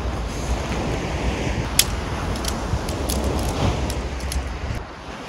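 Wind buffeting the microphone over the wash of sea surf. A handful of sharp clicks or taps in the middle, the first the loudest. The rumble drops off abruptly near the end.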